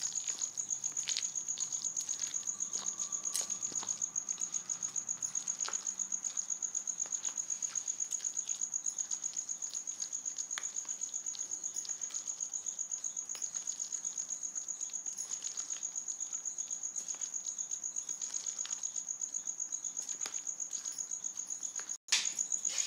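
A cricket chirping in a fast, even, high-pitched pulse that goes on without a break. Under it are faint soft squelches of pakora batter being mixed by hand in a plastic bowl.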